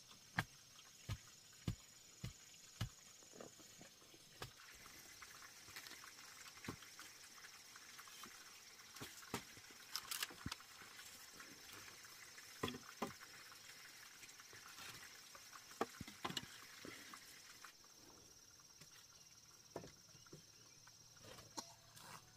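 A series of sharp knocks, quick and fairly regular for the first few seconds, then scattered, over a faint, steady, high-pitched drone.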